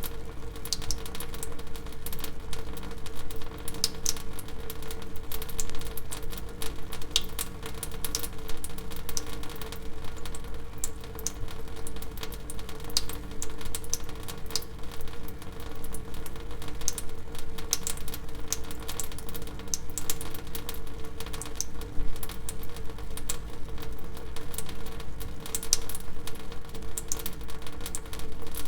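Water dripping: a steady stream of irregular, sharp drip clicks, several a second, over a constant low hum.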